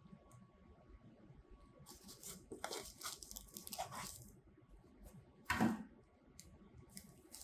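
Controller packaging being torn and pulled open by hand: a run of scratchy tearing and rustling from about two to four seconds in, then one short, louder rip about five and a half seconds in.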